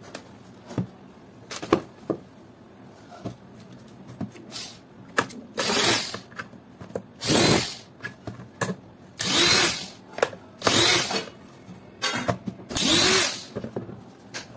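Electric screwdriver run in five or six short bursts, each with a whine that rises as the motor spins up, driving screws out of a plastic hand-mixer housing. Clicks and knocks from handling the plastic casing come between the bursts and in the first few seconds.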